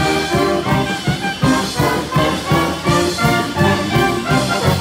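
Pep band brass section playing an upbeat tune, sousaphone, trombones and trumpets over a steady beat.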